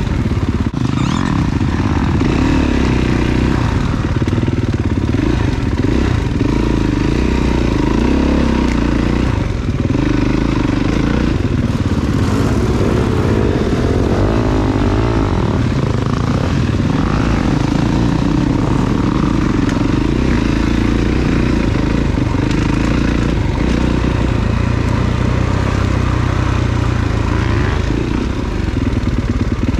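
Dirt bike engine running and revving as the bike rides rough singletrack, with scattered knocks and rattles from the chassis over the ground.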